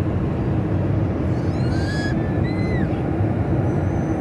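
Jet airliner cabin noise in cruise: a steady roar of turbofan engines and airflow with a constant hum. About a second and a half in, a brief high-pitched sound glides up and down for about a second.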